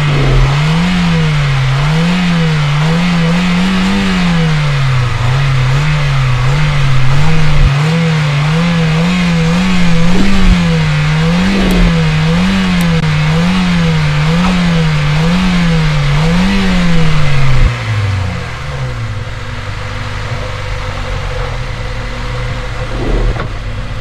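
Honda Civic four-cylinder engine revved up and down over and over, about once a second, then dropping back to idle about three-quarters of the way through. It is skipping a beat and shaking, a misfire the owner thinks lies in the fuel system or the spark plugs.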